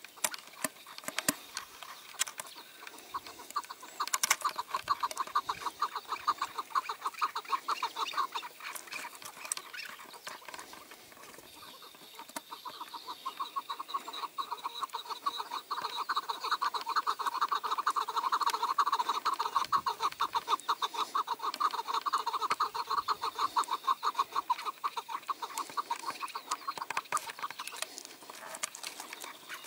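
Chukar partridge calling, a rapid run of repeated clucking notes that grows louder about halfway through.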